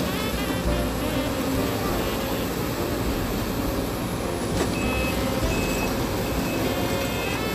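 Sumitomo amphibious excavator's diesel engine running steadily under load. Its travel alarm beeps repeatedly from about halfway in.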